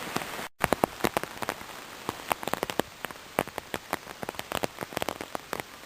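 Heavy rain falling steadily, with large drops hitting a nearby surface in quick, irregular taps. A brief break in the sound comes about half a second in.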